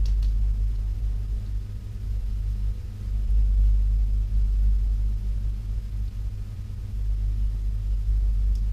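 A steady low hum with a deep rumble underneath, even throughout.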